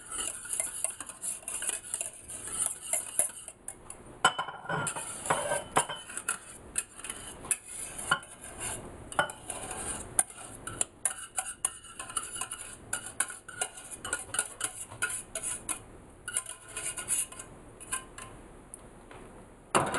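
Wire whisk stirring thick custard, its wires clinking and scraping against a stainless steel saucepan and later a glass bowl in quick, irregular strokes.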